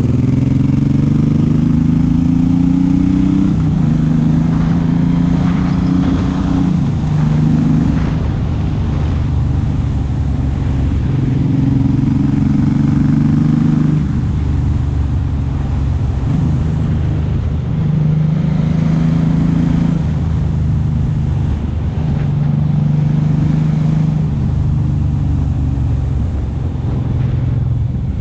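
Suzuki M109R (VZR1800) V-twin engine under way, its revs climbing and then dropping sharply at upshifts a few times in the first several seconds, then holding at a steadier cruise with small rises and dips of the throttle.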